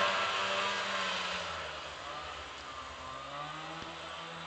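1989 Arctic Cat Jag 340 snowmobile's two-stroke engine running under throttle as the sled rides away, fading. Its pitch drops about halfway through, then climbs again near the end.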